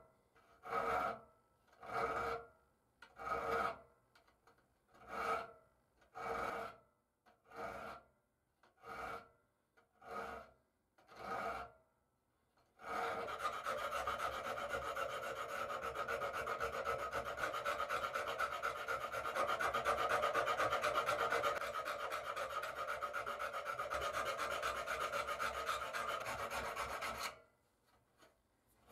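Hand file worked across the rusty steel arm of old pliers held in a vise, taking it down to bare metal. First about ten slow, separate strokes roughly a second apart, then about halfway through a steady run of fast short strokes for some fifteen seconds, which stops shortly before the end.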